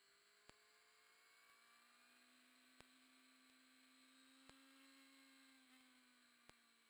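Near silence: no real audio, only a faint hum and hiss with a few faint clicks.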